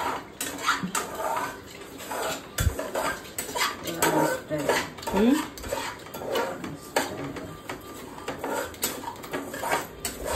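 Kitchen dishes and utensils clattering, a long run of separate clinks and knocks as they are handled.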